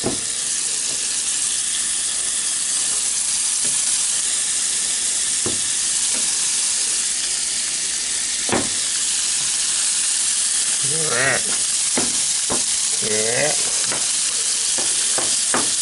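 Butter sizzling steadily as it melts in the cups of a silicone egg mold on a Blackstone 17-inch electric griddle set to 350°F, with a few sharp pops.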